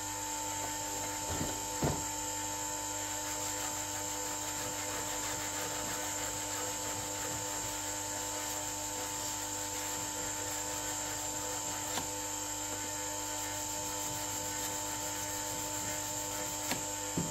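Bench grinder running steadily while a chisel is sharpened against its wheel, with a few light clicks at about two seconds, about twelve seconds and near the end.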